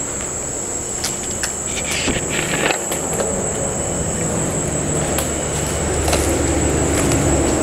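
A car engine getting steadily louder as a vehicle approaches, over the steady high-pitched chirring of crickets. There are a few short rustles in the first few seconds.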